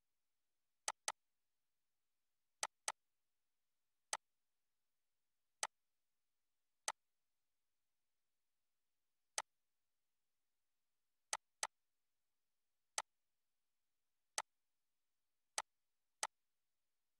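Computer mouse clicks, single and in quick double-click pairs, about fourteen in all, each one short and sharp.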